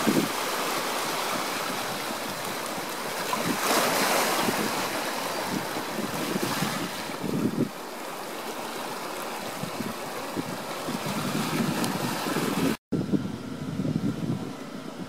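Ocean surf washing on the shore: a steady hiss of waves that swells about three to four seconds in. It cuts off abruptly near the end, giving way to quieter outdoor ambience with wind on the microphone.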